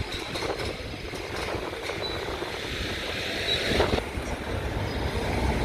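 Car engine running low as the car is driven slowly into a tight shop bay, with wind noise on the microphone. A short clack sounds about four seconds in.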